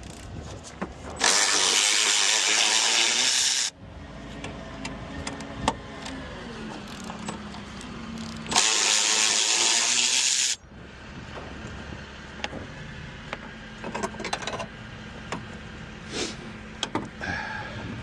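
A power tool is run twice, each time for about two seconds with a sudden start and stop, while bolts are being taken out of the car's front suspension. Quieter clicks and handling noises come in between.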